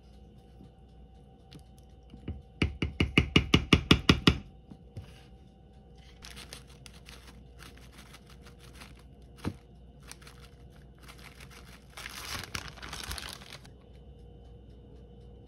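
Kitchen handling of a spoon and ceramic dish. A fast run of about a dozen sharp knocks, about eight a second, starts a couple of seconds in; scattered fainter clicks follow, and a short rustle comes near the end.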